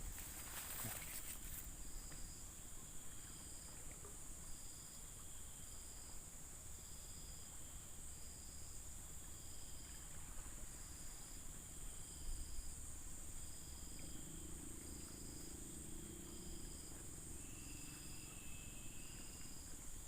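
Insects chirping in a faint, steady chorus, with one giving a regular chirp about three times every two seconds.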